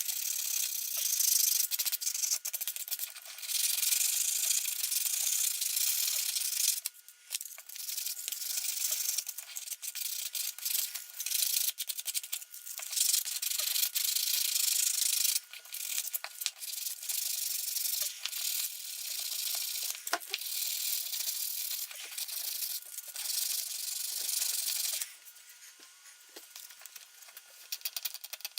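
Rust being scrubbed off the metal of an old hand plane with an abrasive, a dry rubbing scrape in long stretches of strokes. It breaks off briefly about seven seconds in and goes quieter near the end.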